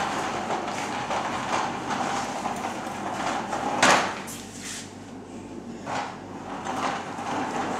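A plastic baby walker rolling and rattling over the floor, with a sharp knock about four seconds in.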